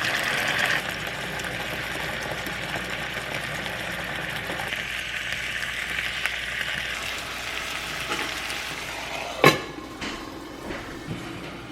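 Food sizzling as it fries in a pan, loudest in the first second and then easing off. About nine and a half seconds in there is a single sharp knock.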